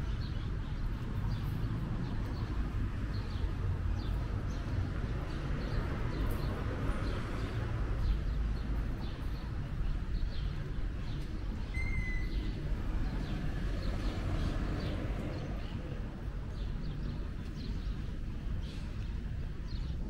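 Town-street background: a steady low hum of traffic with small birds chirping over and over in the trees, and one short high whistle-like note about twelve seconds in.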